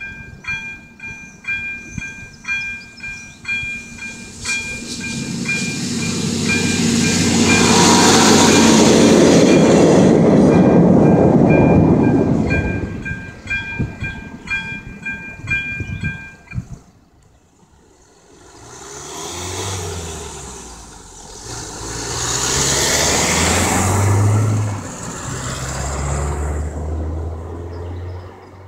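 A level-crossing warning bell dings over and over in a steady beat while a class 810 diesel railbus passes, loudest a little before halfway through. The bell stops about halfway through; after that a road vehicle's engine pulls away, its pitch rising and stepping up through the gears.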